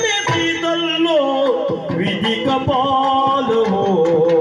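Yakshagana bhagavata, a male singer, singing a wavering, ornamented melodic line over a steady drone, with a few strokes on the maddale barrel drum.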